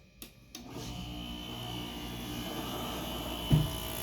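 Midea window air conditioner switched on: a few clicks from the control knob, then the fan motor starts and runs with a steady whooshing hum and a thin high whine. There is a brief low thump about three and a half seconds in.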